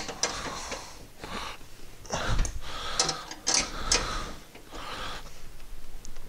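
Irregular light metallic clicks and knocks as a steel frame bracket and its bolts are fitted by hand to the rear of a riding lawn mower.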